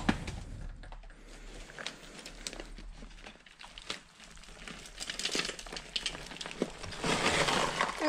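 Rubble of broken brick, tile and wood crunching and clattering under shifting feet while a long plank is dragged and lifted against a concrete wall. The crackling gets busier in the second half, with a longer scraping rush near the end.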